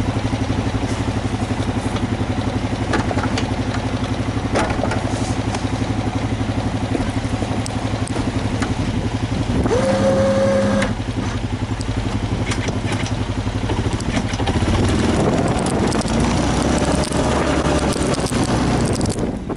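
An engine running steadily with a fast, even pulse, and a short steady higher tone about ten seconds in.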